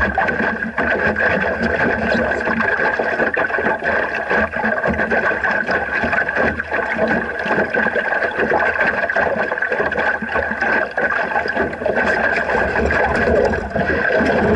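Steady rush of water and wind around a small sailing dinghy under way, with frequent small slaps and knocks against the hull and a steady high tone running through the noise.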